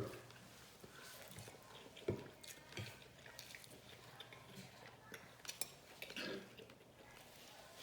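Quiet eating sounds: scattered light clicks and taps of cutlery against the food on a cutting board, with some chewing.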